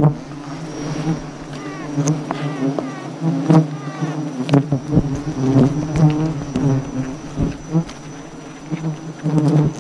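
A dense swarm of giant honey bees buzzing around their open combs: a steady low drone, with single bees whining past close by now and then. A few light knocks come through as well.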